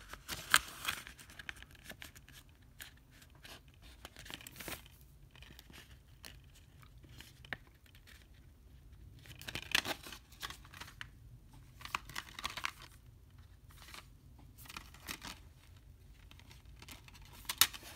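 Handling of a clear plastic Blu-ray keep case and its paper cover insert: paper rustling and sliding against plastic, with irregular clicks and short scrapes, the loudest about half a second in, around the middle and near the end.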